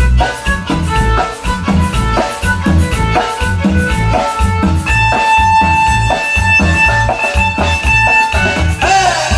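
Dance music with a steady beat and a bass line; a lead instrument holds one long high note in the middle, then slides down near the end.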